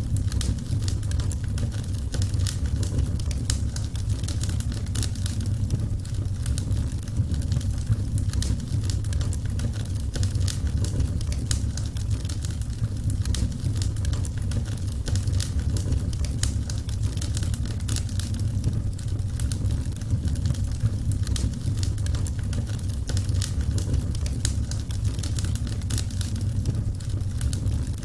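Burning wood fire crackling: frequent, irregular sharp snaps and pops over a steady low rumble.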